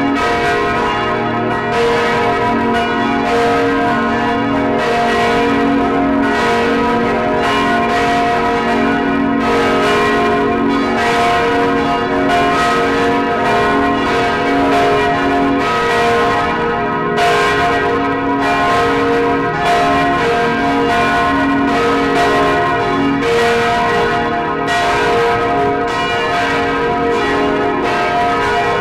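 Large church bells of St. Catherine's Church in Gdańsk swinging and tolling together, heard up close inside the belfry. Strokes come about once a second and each rings on into the next, tolling as a funeral knell.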